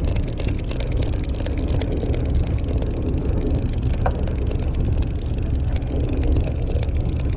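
Conventional saltwater fishing reel being cranked, its gears ticking rapidly, over a steady low rumble from the boat and wind.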